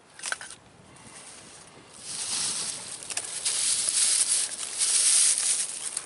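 A small metal tin knocks once, then a bundle of dry grass tinder rustles loudly as it is handled and pressed, starting about two seconds in.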